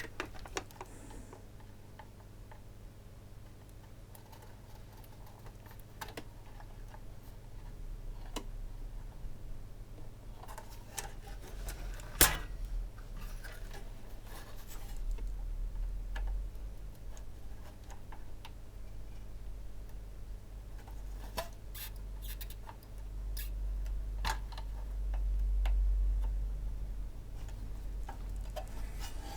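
Desoldering work on a circuit board: scattered light clicks and taps of tools on the board and parts, with one sharper click about twelve seconds in, over a steady low hum.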